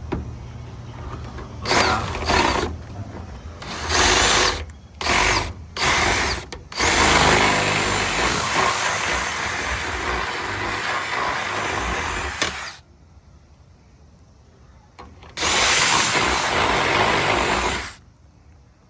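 Power drill boring out a trunk lock cylinder: several short bursts on the trigger, then a long steady run of about six seconds, a pause, and a final run of a couple of seconds near the end.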